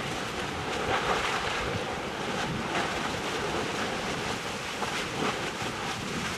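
Erta Ale's lava lake churning and spattering: a steady rushing like surf, with occasional crackles.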